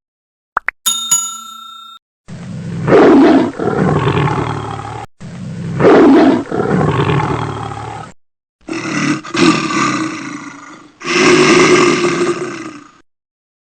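A short bell-like ding, then a big cat roaring: four long, loud roars of two to three seconds each, one after another.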